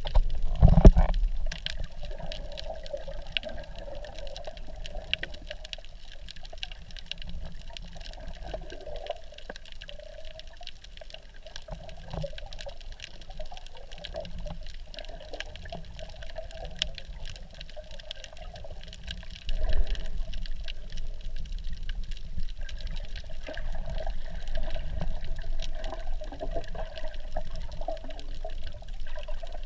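Muffled underwater water noise picked up by a GoPro in its waterproof housing while snorkeling: sloshing and bubbling water movement, with a louder burst about a second in and louder again from about two-thirds of the way through.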